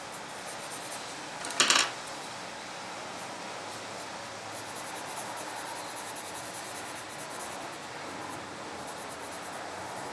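Coloured pencil scratching on paper in quick hatching strokes, with a short clatter of a pencil set down on a hard surface a little under two seconds in, the loudest sound here, as the red pencil is swapped for a dark one.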